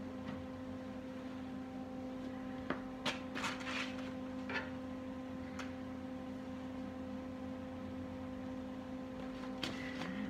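Steady shop hum, with a few sharp metallic clicks and short clatters about three to four seconds in and again near the end: locking pliers and a sheet-metal repair piece being handled and clamped onto a car's wheel-arch panel.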